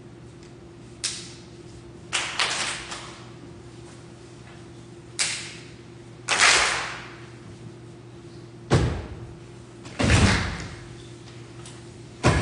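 A series of about seven sharp thuds and booms, one every second or two, each ringing out in a reverberant hall. The last three carry a deep low end.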